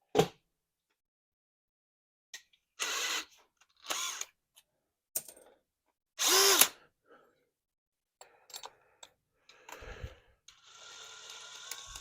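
A series of short knocks and clatters from handling tools and wire, then an electric drill running for a couple of seconds near the end.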